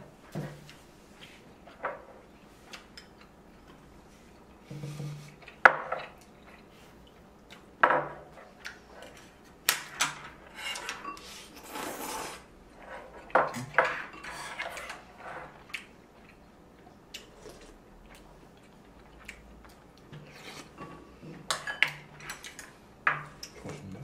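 Wooden chopsticks and spoons tapping and clinking against ceramic bowls and plates while eating, in scattered, irregular knocks.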